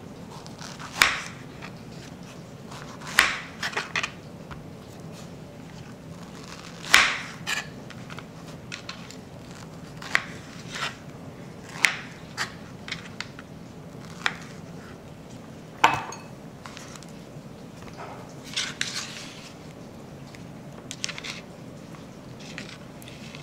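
Knife clicking and tapping against a cutting board as peaches are sliced and cut into chunks: irregular sharp clicks a second or two apart, with a short scraping patch a little after the middle.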